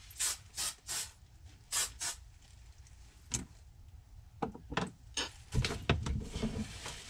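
About five quick squirts of a pump spray bottle, short hisses in the first two seconds: fart spray being sprayed into the room. They are followed by plastic-bag rustling and knocks from handling close to the microphone.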